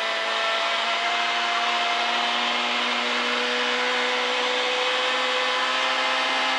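Citroën C2 R2 Max rally car's 1.6-litre four-cylinder engine heard from inside the cabin, pulling in fourth gear with its pitch climbing slowly and steadily, over a loud hiss of road and tyre noise.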